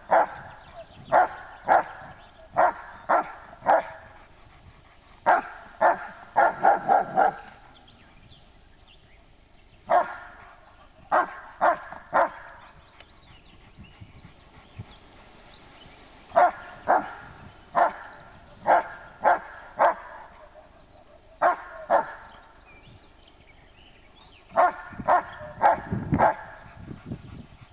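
A German Shepherd barking: sharp, loud barks in quick groups of two to five, with pauses of a few seconds between groups and a longer lull in the middle.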